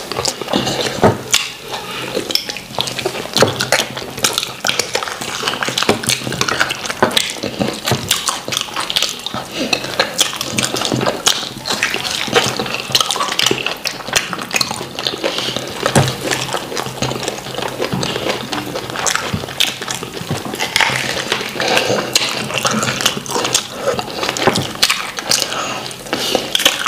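Close-miked mouth sounds of eating wheat fufu and slimy ogbono soup by hand: wet chewing, lip-smacking and slurping, a dense run of small squelches and clicks.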